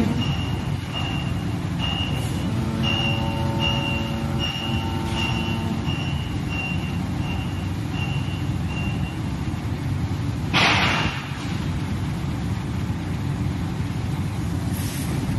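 Injection moulding machine running a flip-top cap mould, with a steady hum. A high electronic beep repeats about twice a second for the first nine seconds, and a short burst of hiss comes about ten and a half seconds in.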